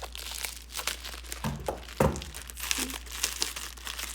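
Packing wrap crinkling and crackling as a wrapped crystal is unwrapped by hand, with a couple of dull knocks about one and a half and two seconds in.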